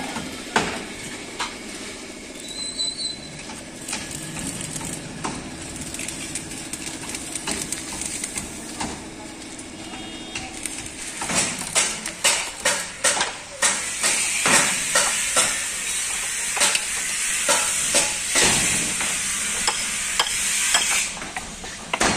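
Work noise in a truck body-building yard: a steady hiss with scattered clicks, then from about halfway a run of sharp knocks and clatter, two or three a second, over louder noise.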